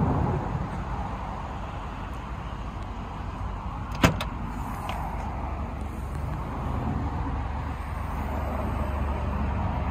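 Steady low outdoor rumble, with a sharp double click about four seconds in as the Ford Fiesta's tailgate latch is released, and a fainter click just after.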